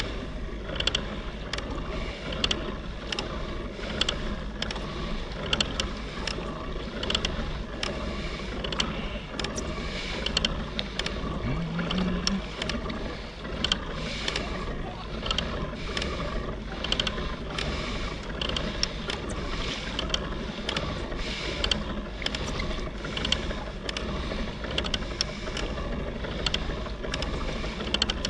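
A kayak afloat on calm sea: a steady wash of water and wind, with frequent short taps and knocks of small waves or gear against the hull, about one or two a second.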